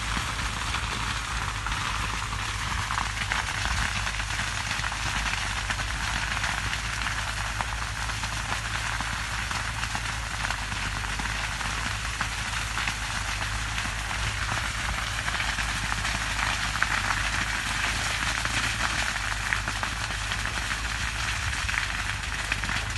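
Sugarcane field burning: a dense, steady crackling of burning cane leaves and stalks, with a steady low rumble underneath.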